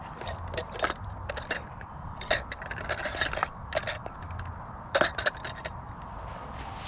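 Tent pegs clinking and scraping against each other and a cut-up plastic bottle used as a peg holder as they are handled and packed into it. The clicks come in irregular runs, thickest a little past three seconds in, with the loudest clatter about five seconds in.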